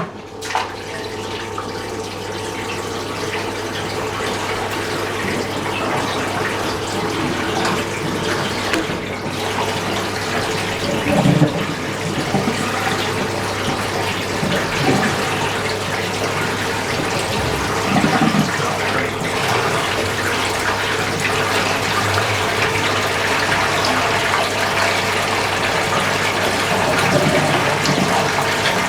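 Fisher & Paykel MW512 washing machine filling with water: a steady rush of incoming water that starts suddenly and builds slowly, over a constant low hum.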